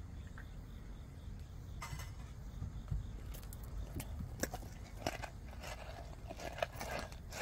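Sharp clicks and crunches of a spoon against a plastic food bowl on gravel, with a cat eating wet food from the bowl, growing busier in the second half.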